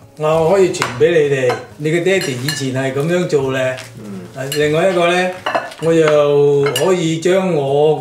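A man speaking in Cantonese, with a few light clinks of cutlery and dishes.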